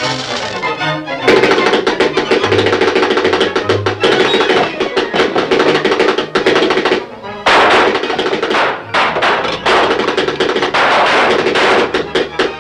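Fast cartoon score music with rapid drum and wood-block percussion over sustained tones, breaking off briefly about seven seconds in.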